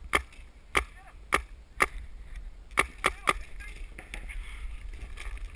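Paintball marker firing, seven sharp shots: four about half a second apart, then a quick string of three about three seconds in.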